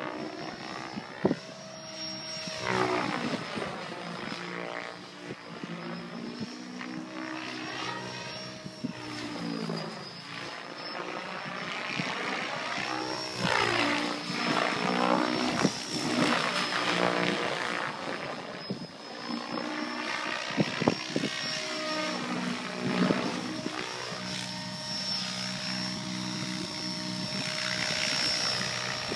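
Mikado Logo XXtreme 800 electric RC helicopter in flight: the thrum of its rotor blades with a steady high whine over it, swelling and fading as the helicopter swings back and forth.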